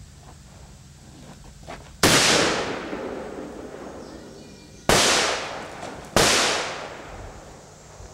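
Three handgun shots, about two seconds in, then a little under three seconds later, then again just over a second after that. Each is a sharp crack followed by a long echo that dies away over a second or two.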